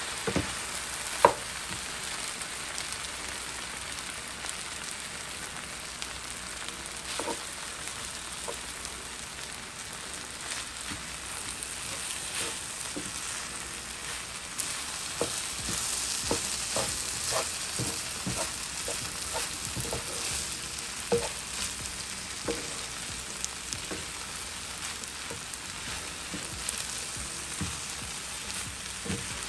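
Shrimp and pineapple fried rice sizzling in a hot pan as a wooden spatula stirs and tosses it, with scattered knocks and scrapes of the spatula against the pan, a sharp knock about a second in.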